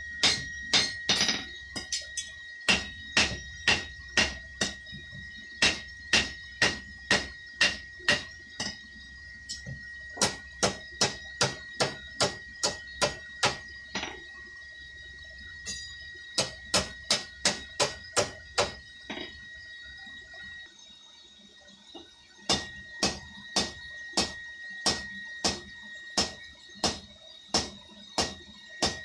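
Blacksmith's hand hammer striking steel on an anvil, runs of about two to three blows a second broken by short pauses, forging a fire poker. A steady high tone and a low rumble run underneath; the rumble stops about two-thirds of the way through.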